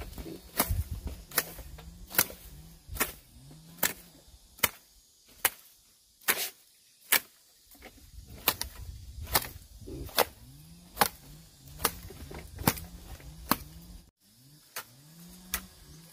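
A steady series of sharp chopping strikes from a hand tool, a little more than one a second, with a short pause near the middle.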